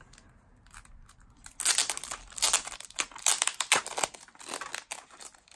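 Clear plastic wrapping on a small package crinkling as it is handled. The crinkling comes in quick, dense bursts from about one and a half seconds in and eases near the end.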